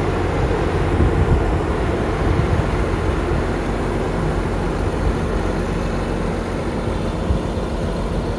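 John Deere 748L skidder's diesel engine idling steadily.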